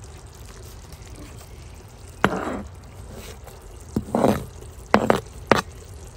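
Sliced green chillies tipped and scraped off a cutting board into a clay pot of chicken karahi: two short scraping rustles, about two and four seconds in, then two sharp knocks about a second later.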